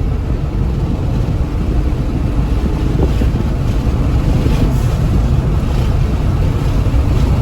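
Inside the cabin of a 2014 Hyundai Veloster Turbo while driving: a steady, loud low rumble of engine and road noise, the car's misfiring 1.6-litre turbocharged four-cylinder under way.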